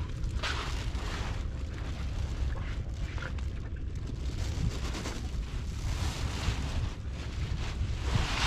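Wind buffeting the microphone by the sea: a steady low rumble with irregular rushes of hiss that swell and fade every second or two.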